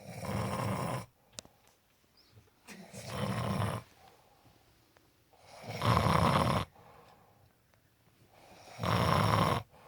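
A sleeping person snoring: four rasping snores, each about a second long and about three seconds apart, the last two louder.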